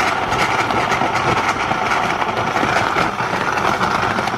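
Countertop blender running steadily at high speed, puréeing strawberries, dates, seeds and water into a smooth juice.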